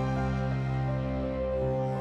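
Slow, sad background music from a DVD menu: soft held chords, with the low note changing about a second and a half in.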